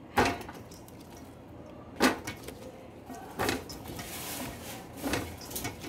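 Raw potato sticks handled in a steel bowl and dropped into a perforated basket: four short knocks about a second and a half apart, with soft rustling between.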